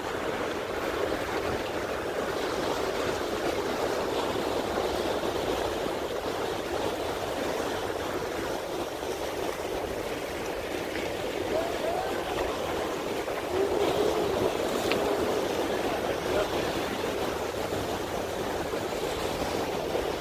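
Channel water washing and sloshing against the stone blocks of a jetty, an unbroken wash of splashing.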